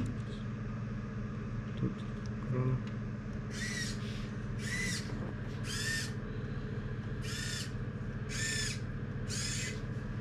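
Prototype colour-mixing machine's small motors or pumps, switched from its touchscreen, running in six short bursts about a second apart, each rising and falling in pitch, over a steady low hum.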